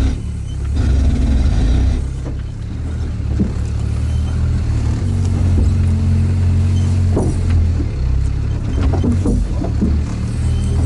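An off-road all-terrain vehicle's engine drones steadily, heard from inside the cab as it crawls over rocky ground. A few short knocks and clanks from the vehicle come through along the way.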